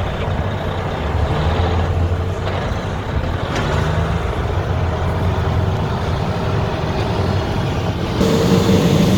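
Heavy diesel engine of a construction truck running steadily, with a low hum; the sound changes abruptly about eight seconds in.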